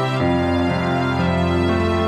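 Instrumental background music: slow held notes, the chord changing about every half second.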